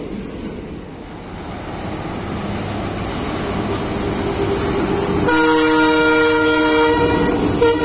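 ALCO diesel locomotive running, its rumble growing louder as it approaches, then its horn sounding a loud, long blast about five seconds in, followed near the end by a short toot.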